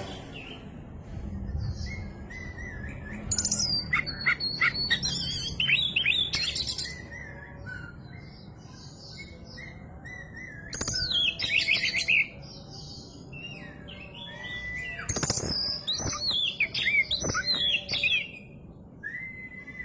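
Oriental magpie-robin (kacer) singing: bursts of loud, varied whistles and fast chattering trills, loudest about three to seven seconds in, again around eleven seconds and from fifteen to eighteen seconds, with softer single whistled notes between. The song is filled with phrases copied from other birds.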